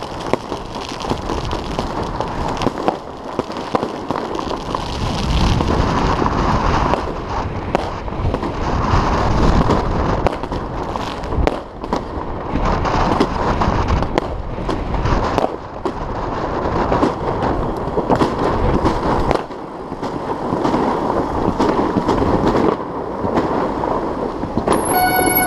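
New Year fireworks salvos going off across the city in repeated pops and cracks, over the steady rolling noise of fat-bike tyres on packed snow and ice. Near the end a steady horn-like tone with several overtones starts.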